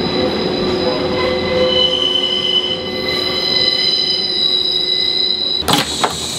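Wheels of a Class 143 Pacer railbus squealing through a curve: several steady high-pitched tones over the rumble of the carriage, the screech of a rigid four-wheel underframe with no bogies. Near the end the squeal cuts off and a couple of sharp knocks follow.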